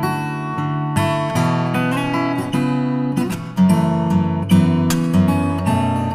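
Background music: acoustic guitar playing chords, with steady note attacks.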